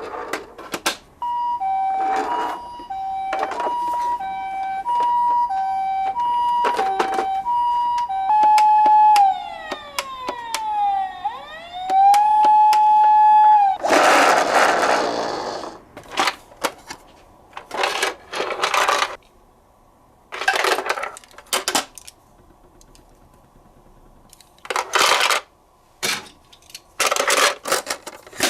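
Ambulance two-tone siren alternating high and low tones about one pair a second, then a held tone that slides down and back up. From about halfway, a string of short, loud clattering crashes of the toy cars hitting blocks.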